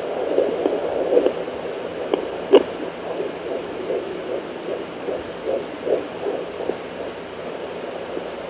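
Home fetal doppler playing a fetal heartbeat at 16 weeks: rapid whooshing pulses, about two to three a second. A sharp knock comes through about two and a half seconds in.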